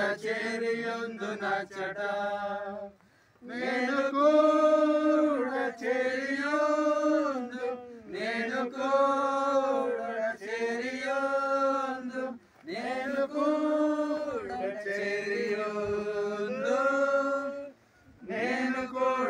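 A small group of people singing a Telugu hymn together without accompaniment, in four long sung phrases with short pauses for breath between them.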